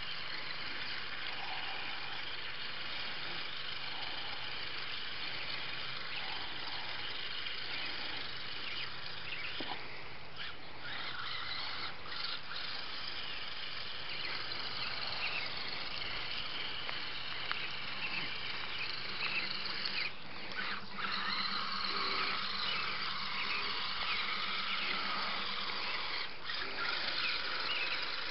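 Electric motor and gear drive of a radio-controlled Redcat Everest-10/Axial SCX10 hybrid rock crawler whining as it crawls through a water-filled ditch, over a steady hiss of rain. A lower buzzing tone joins for several seconds in the second half.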